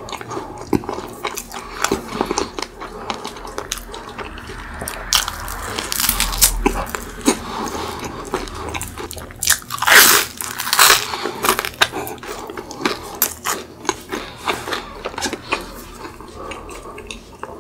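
Close-miked chewing of a crispy croffle: a run of irregular crisp crunches and wet mouth clicks. The crunching is loudest about ten seconds in.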